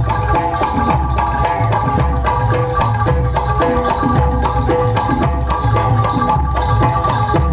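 Jaranan gamelan music: hand drums playing a steady, driving beat under ringing pitched percussion.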